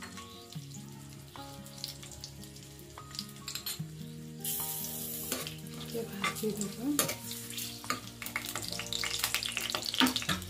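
Whole spices (bay leaves, dried red chillies, cinnamon, green chilli) sizzling and crackling in hot mustard oil in a kadai, with a spoon stirring them in the pan about halfway through; the crackling grows denser near the end. Soft instrumental background music underneath.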